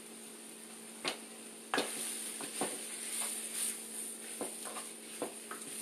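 Pork sausage sizzling as it browns in a skillet while a wooden spoon stirs it, scraping and knocking against the pan. The stirring starts a little under two seconds in, after a single click, over a steady electrical hum.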